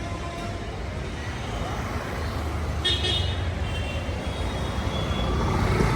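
Busy street traffic: vehicle engines running with a steady low rumble, and short vehicle horn toots about halfway through.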